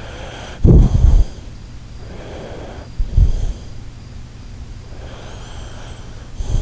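Shiba Inu snoring in its sleep: three deep, loud snores about three seconds apart, with softer breathing between them.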